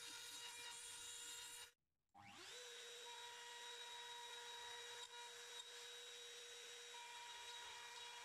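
Wood router motor running with a faint, steady high whine while cutting mortises in a strip of oak. About two seconds in the sound drops out briefly, then the whine comes back rising quickly in pitch to full speed.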